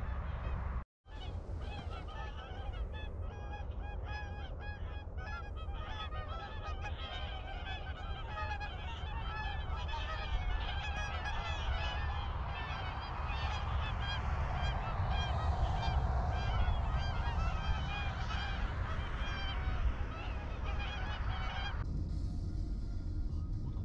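A flock of swans calling continuously, many short honking calls overlapping, over a steady low rumble. The calling cuts off near the end.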